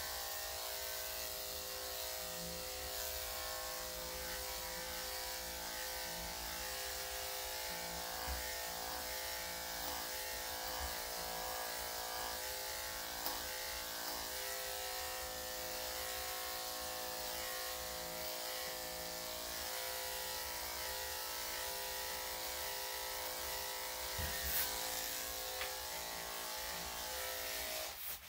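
Electric dog clippers fitted with a 3/4 inch blade running with a steady hum as they clip a Yorkshire Terrier cross's coat, stopping near the end.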